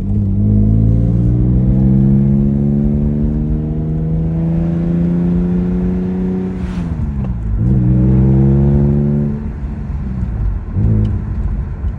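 BMW M3 engine pulling hard under acceleration, with a gear change about seven seconds in where the pitch drops, then climbing again before the driver backs off near the end.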